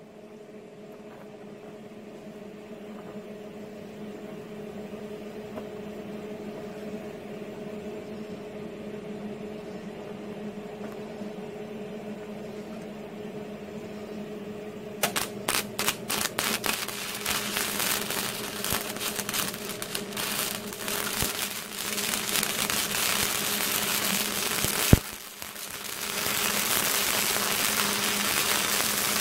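A steady hum, then a Hobart Handler 120 MIG welder running flux-core wire: the arc strikes in short stuttering starts about halfway, then crackles and sizzles as it lays a bead. Near the end there is one sharp snap and a brief break before the arc crackles steadily again.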